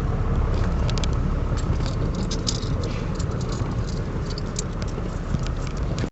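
Coins clinking and jingling as they are handled, a quick run of small clicks, over the steady low rumble of an idling car.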